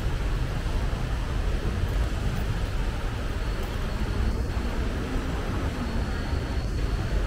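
Steady low rumble of city traffic and idling vehicles, with no distinct single event, and a faint thin high whine through the middle.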